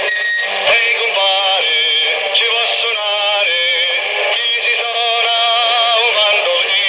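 Music with singing played over a CB radio channel, heard through the radio's speaker. It sounds thin and narrow, with no bass and no top end.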